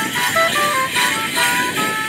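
Live Morris dance tune played by the dancers' musicians, a quick melody of short notes.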